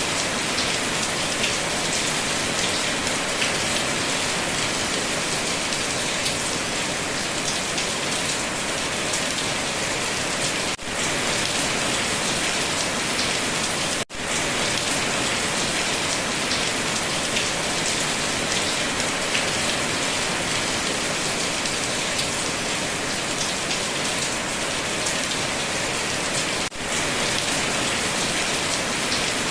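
Steady rain falling, an even hiss of many drops. The sound dips out briefly three times: about eleven seconds in, about fourteen seconds in and near the end.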